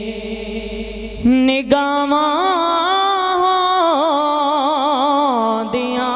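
A man sings a Punjabi naat, stretching one syllable of the line into a long melismatic phrase. A low held note rises about a second in into wavering, ornamented turns with vibrato.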